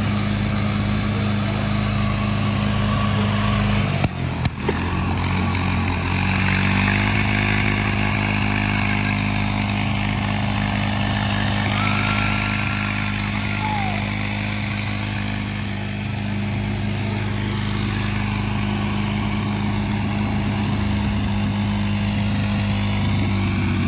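Riding lawn mower engine running steadily under heavy load while pulling against a chained mini tank in a tug of war, with a brief dip about four seconds in.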